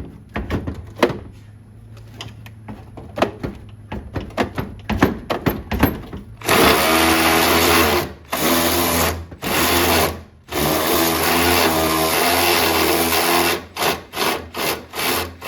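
A series of sharp clicks, like hand tool work on a bolt, followed from about six seconds in by a cordless power tool run in several long bursts and then short blips on a stuck fender bolt.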